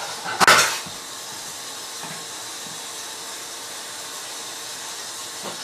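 A short clatter about half a second in, then a steady hiss.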